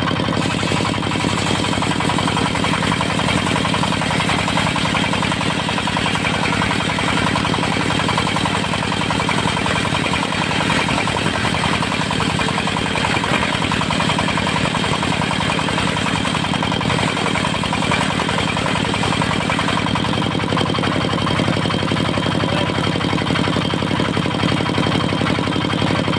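Diesel engine of a portable circular-saw sawmill running steadily at an even speed.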